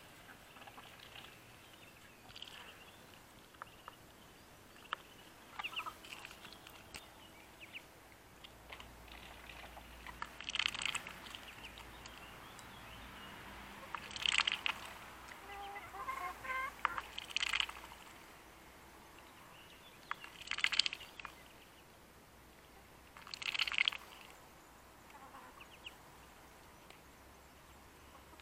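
Domestic hens calling and clucking: five short, loud squawk-like calls spaced a few seconds apart, with a quick run of clucks about halfway through.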